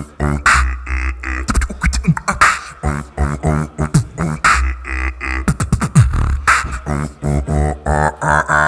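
Solo beatboxing into a cupped handheld microphone: a fast beat of vocal kick, snare and hi-hat sounds over pitched, buzzing bass notes, with quick downward-sliding zaps every couple of seconds.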